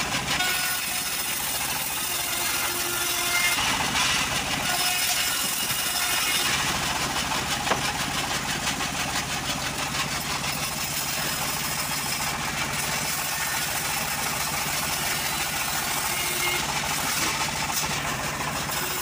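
Homemade band sawmill ripping a plank of johar wood, with the band blade cutting through the board and the stationary engine that drives it running steadily underneath.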